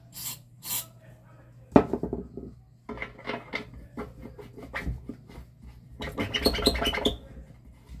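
Short hisses of an aerosol penetrating-oil spray on an industrial blender's cutter shaft. About two seconds in comes a sharp knock, then bursts of metallic clicking and squeaky rubbing as the stuck shaft, gummed up with food residue, is worked loose by hand.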